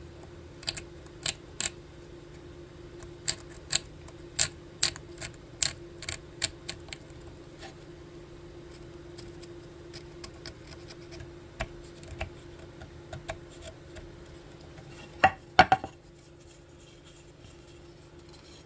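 A small hand carving tool scraping and chipping the scorched top layer off a woodburned red oak carving, in a series of sharp little clicks at irregular intervals that thin out about halfway through. A few louder knocks come near the end, over a steady low hum.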